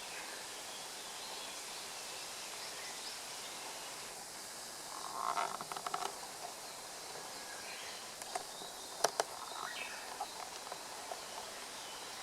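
Woodland ambience with scattered bird calls, a louder burst of sound a little after five seconds and a few sharp clicks about nine seconds in.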